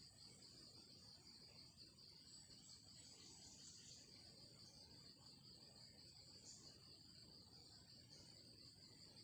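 Near silence with a faint, steady high-pitched insect trill running throughout, and a few brief higher buzzes from other insects.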